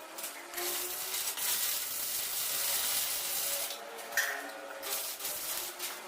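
Electric arc welding on steel door hinges: a steady hissing crackle from the arc, broken by a couple of short pauses, one about four seconds in.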